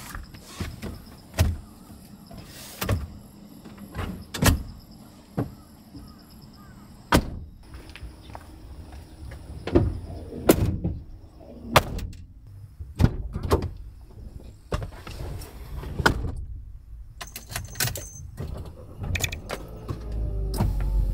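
Renault Kangoo van's doors and fittings being handled: a long series of separate thumps, clunks and latch clicks as doors are opened and shut. A low rumble comes up near the end.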